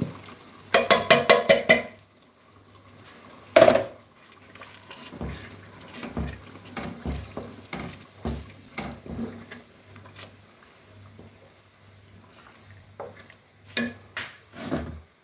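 Metal tin knocked against the rim of an aluminium stock pot to empty it: a quick run of about seven loud clanks, then one louder ringing clank. After that a wooden spoon stirs thick tomato sauce, knocking and scraping irregularly against the pot's side.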